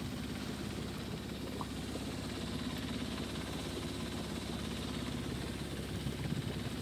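A sailing yacht's auxiliary engine running steadily under way at sea, a low, even, fast-pulsing drone.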